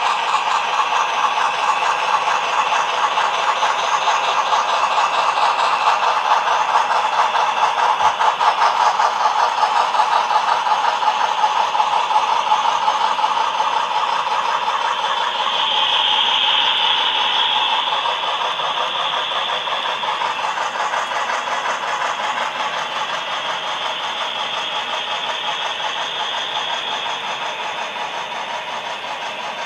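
Several HO scale model trains running at once: a steady whirring of small motors and wheels on track, with fast continuous ticking.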